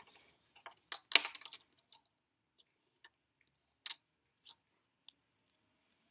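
Plastic Lego minifigures clicking and tapping on a wooden tabletop as they are picked up and set down by hand: scattered sharp clicks, the loudest cluster about a second in and another near four seconds.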